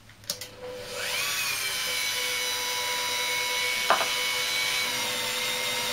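Flexible-shaft rotary polishing tool switched on with a click and spinning up to a steady high whine, its small pad working water and coarse polishing powder over a glass paperweight during the first polishing stage. There is a short knock about four seconds in.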